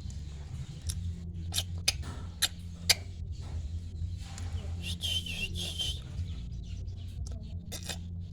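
A starling chick giving a short, wavering high-pitched call about five seconds in, over a steady low hum, with several sharp clicks in the first three seconds.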